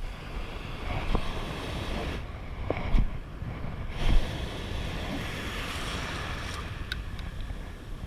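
Surf washing over a shallow beach, with wind buffeting the microphone as a low rumble, and two short dull knocks about three and four seconds in.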